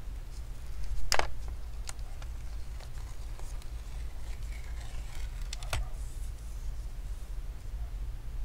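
A thin steel pry tool clicks and taps against a laptop's metal bottom case, and a rubber foot strip is peeled off its double-sided adhesive. The sharpest click comes about a second in, a few lighter taps follow, and a faint scratchy rasp runs from about four to six seconds in, over a steady low hum.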